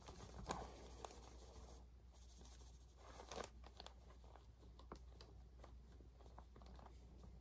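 Faint crinkling and rustling of a plastic zip bag being handled and shaken, with a few short louder rustles, as flock fibers are tipped out of it.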